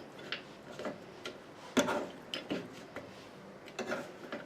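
A spoon stirring a fruitcake mixture in a pot, giving irregular light knocks and scrapes against the pot, the loudest a little under two seconds in.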